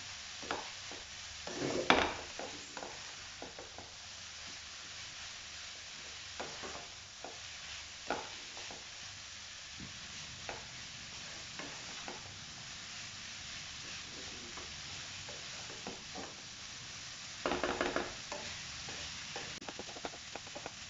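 Spaghetti noodles and shredded vegetables sizzling in a wok while a spatula tosses and scrapes through them, with scattered knocks of the spatula against the pan. There is a louder clatter about two seconds in and a quick run of knocks near the end.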